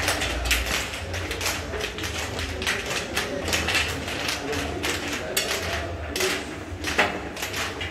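Footsteps of a file of footballers walking along a hard corridor floor: many overlapping taps and clicks, with one sharper click near the end.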